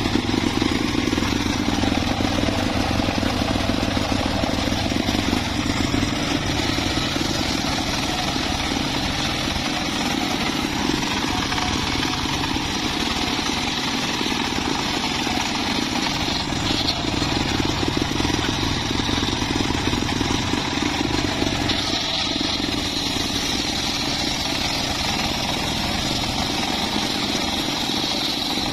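Homemade engine-driven sliding-table circular saw running steadily while its blade rips a teak beam.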